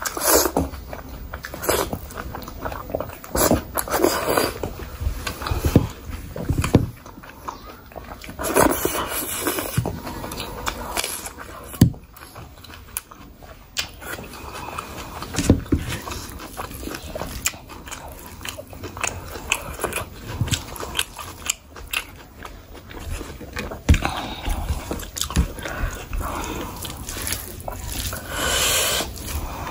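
Close-miked eating by hand: irregular biting and wet chewing of rice, curry and boiled greens. Near the end, a hand squishes and mixes rice into curry.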